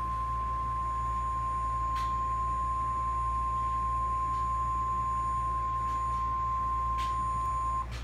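Emergency Alert System attention tone for a tornado warning, played through a TV's speaker: a single steady high tone that cuts off just before the end.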